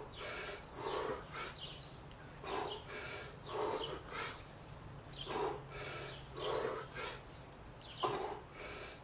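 A man's hard, rhythmic breathing, with sharp puffs of breath about once or twice a second as he works through a set of 40 kg kettlebell snatches. Birds chirp briefly in between.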